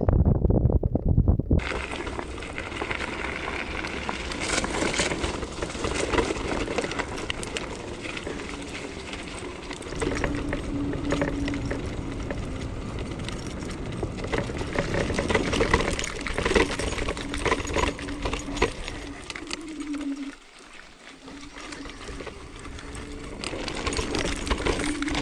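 Varla Eagle One off-road electric scooter riding over rough grass, with steady tyre and frame rattle noise throughout. The hub motor's steady whine comes in about ten seconds in, falls in pitch and cuts out briefly near the end as the scooter eases off, then picks up again. Wind buffets the microphone for the first second or so.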